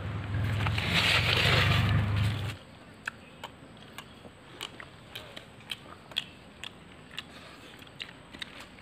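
A low rumble like wind on the microphone for the first two or three seconds cuts off suddenly. Then come quiet eating sounds: scattered short clicks and crunches of biting and chewing fried, battered egg chilli and bread.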